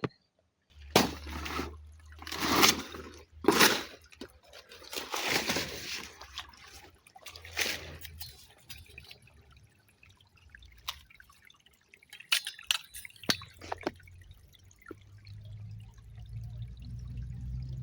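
River water splashing several times in the first eight seconds, then sparser drips and small clicks. A low rumble builds near the end.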